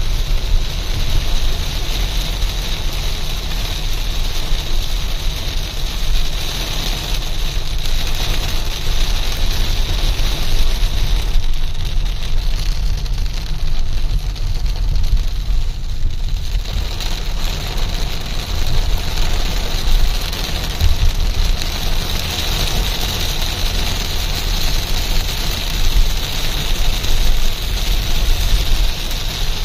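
Steady low rumble of a car driving, under the even hiss of heavy rain; the middle of the hiss thins out for a few seconds around halfway through.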